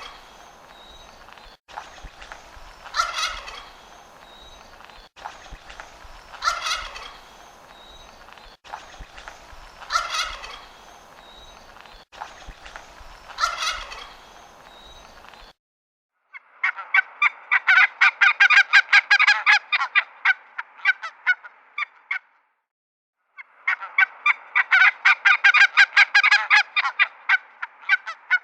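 Poultry calling, gobbling like turkeys. First comes a single call repeated about every three and a half seconds. Then come two long runs of rapid rattling calls, each about five seconds.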